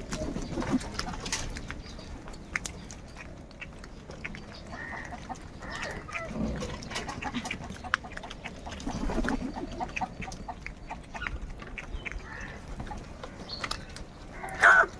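Crows calling: a few short caws here and there among scattered sharp clicks, with one loud harsh caw near the end.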